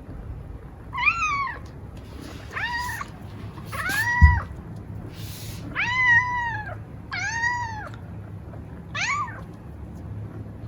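Munchkin cat meowing six times in short, fairly high calls, each rising and then falling in pitch, asking to be fed. A single low thump lands about four seconds in, over a steady low hum.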